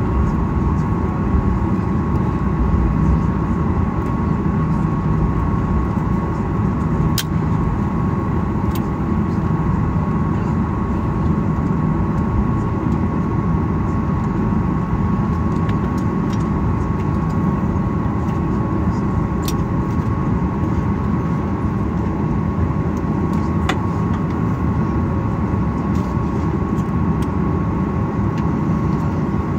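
Cabin noise of a Boeing 737-800 taxiing, its CFM56-7B engines at idle thrust: a steady rumble with a constant thin tone running through it. A few sharp clicks sound inside the cabin.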